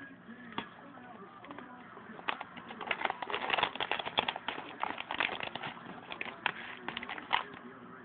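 Oscar fish splashing and gulping at the surface of its aquarium water: a quick, irregular run of small splashes and slurps, starting about two seconds in and thickest in the middle.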